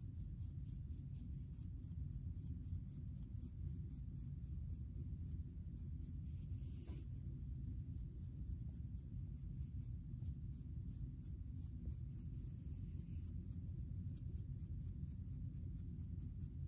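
Fine-tooth comb scratching through short wavy hair and over a dry, flaky scalp, combing out dandruff in quick repeated strokes, about four a second, with one harder stroke about seven seconds in. A steady low hum runs underneath.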